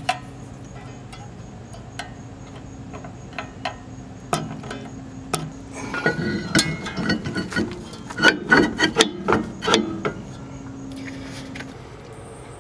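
Metal-on-metal brake work: a few sharp clicks from the parking-brake shoe adjuster as it is turned to snug the shoes, then, about six seconds in, several seconds of loud clanking and scraping as the new cross-drilled, slotted brake rotor is fitted over the hub and shoes.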